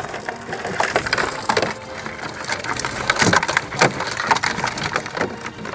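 Collapsible wire-frame crab traps with net mesh being handled: irregular rattling, scraping and clicking of the metal frames and netting.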